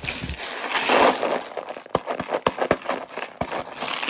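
Plastic packaging crinkling and rustling as it is handled, with many small clicks and knocks.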